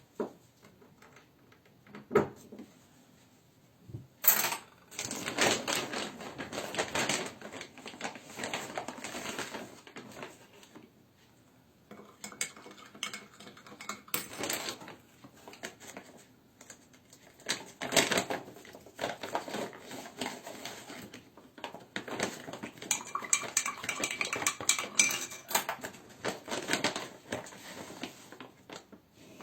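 Irregular clicking and light clattering of hard objects being handled. A couple of sharp knocks come about two and four seconds in, followed by busy stretches of rapid clicks.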